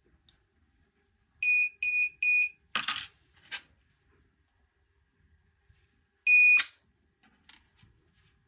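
An RFID door lock's buzzer beeps three short times, followed by a loud clack and a lighter click. A few seconds later it gives one longer beep that ends in a sharp click, as the solenoid lock works.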